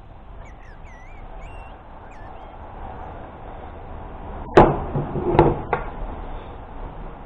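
A caulking gun loaded with a silicone cartridge set down on a table: a sharp knock about four and a half seconds in, then two lighter knocks close after it.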